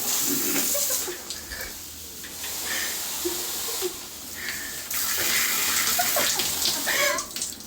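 Shower head spraying water, a steady hiss that changes in strength and texture a few times as the head is switched between its spray modes.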